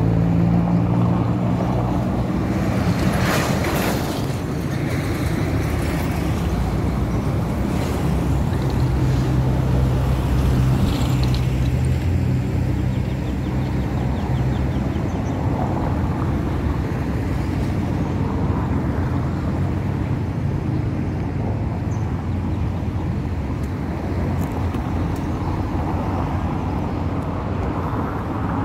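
Road traffic: vehicle engines running with a steady low hum, and a brief louder rush of noise about three to four seconds in.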